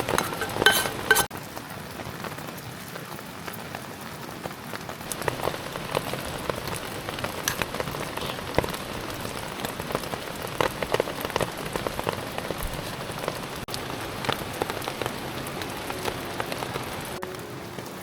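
Steady rain, with individual drops tapping on a surface close by.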